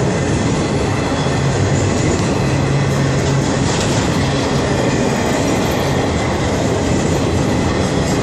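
A Florida East Coast Railway intermodal freight train's cars, loaded with highway trailers, rolling steadily past at cruising speed. Its wheels keep up a loud, steady noise on the rails.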